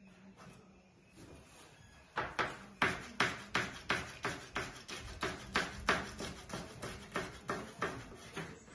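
Kitchen knife chopping vegetables on a cutting board: a steady run of sharp knocks, about three a second, starting about two seconds in.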